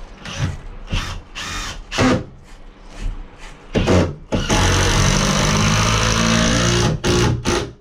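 Handheld power tool, a drill or driver type, running steadily for about two and a half seconds after a string of knocks and scrapes from tool handling, then two more short knocks near the end.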